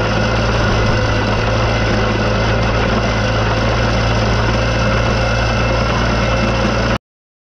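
Ditch Witch RT40 trencher's engine running steadily under load while its digging chain cuts through soil; the sound cuts off abruptly near the end.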